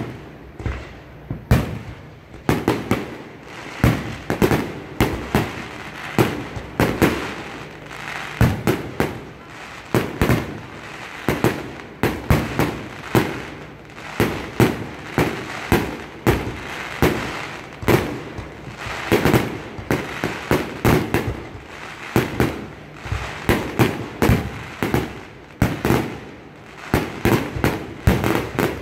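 Aerial fireworks shells bursting one after another in a rapid, continuous barrage, several sharp booms each second.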